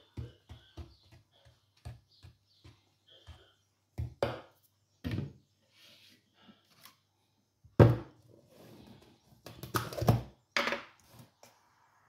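Stainless steel wire whisk working batter in a bowl: quick light clicks of the wires against the bowl, about three or four a second, then several louder, irregular knocks.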